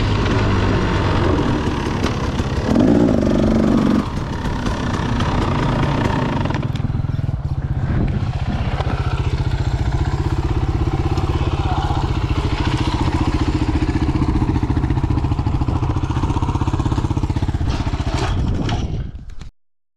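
KTM dirt bike engine running as the bike rolls to a stop, then idling with a steady, even putter. The sound cuts off suddenly near the end.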